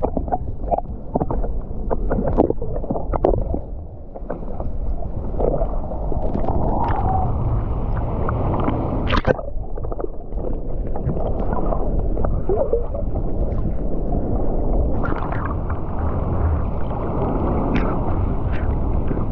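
Muffled underwater sound of the sea picked up by a GoPro held just below the surface: a low, dull water rumble with scattered clicks and gurgles.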